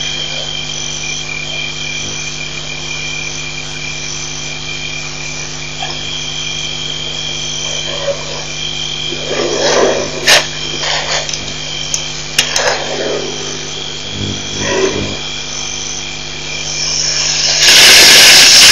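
Elephants drinking from a water pipe: irregular splashing and sucking noises, with a loud rush of noise near the end, over a steady night chorus of frogs and insects and a constant electrical hum.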